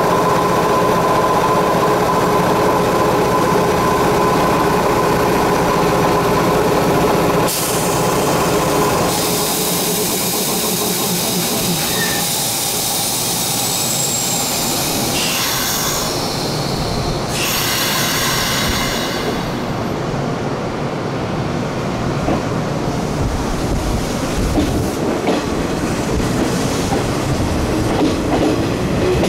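Nishitetsu 5000 series resistor-controlled electric train pulling out of a station, its motors and wheels running as it accelerates. In the second half a lower rumble with wheels clicking over rail joints takes over as it gathers speed.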